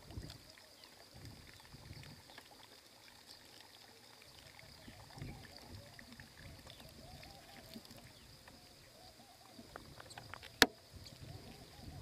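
Faint outdoor ambience at a pond's edge: a steady high insect drone with scattered faint chirping calls, and one sharp click about ten and a half seconds in.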